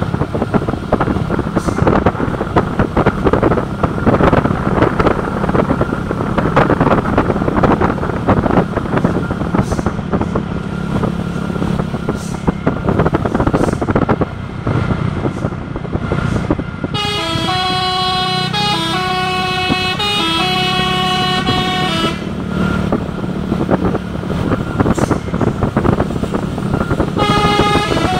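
A heavy vehicle's engine runs with a constant clatter. About 17 seconds in, a telolet horn (multi-tone musical bus and truck horn) plays a stepping tune of several notes for about five seconds, and it plays again near the end.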